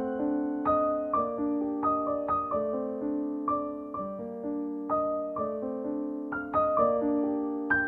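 Background piano music: a melody of single struck notes, about two a second, each ringing and fading.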